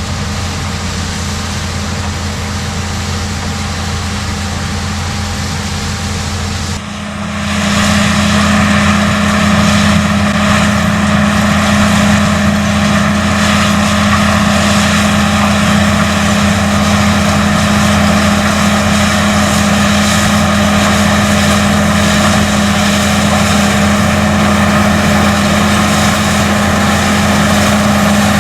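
Case IH 215 Magnum diesel tractor running steadily while pulling a BOB 46 pull-type bean combine that is harvesting kidney beans, engine hum mixed with the combine's machinery noise. It jumps louder about seven seconds in and then holds steady.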